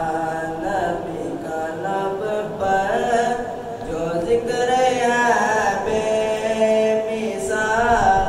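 A young man singing a naat, an Urdu devotional poem in praise of the Prophet, solo and unaccompanied, with long held notes.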